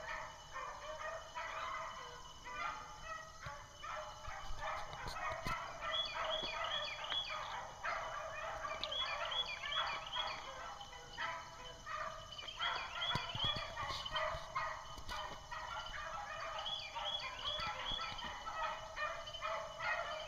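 A pack of beagles giving tongue as they run a rabbit: many short, overlapping calls from several hounds, almost without a break.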